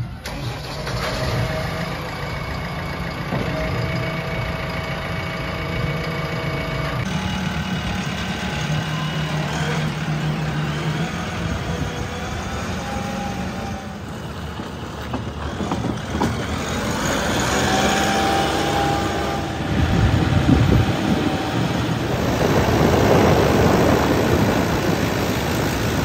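Diesel engine of a JCB 3DX backhoe loader running, heard in several separately cut shots with abrupt changes in the engine sound between them. Near the end a tractor's diesel engine takes over.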